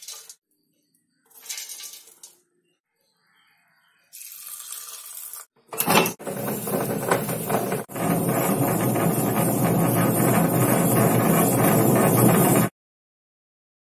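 A few short bursts as soaked rice and lentils are tipped into a tabletop wet grinder. About six seconds in the grinder starts and runs steadily and loudly, its stone rollers grinding the soaked grain into a coarse batter, then it cuts off suddenly near the end.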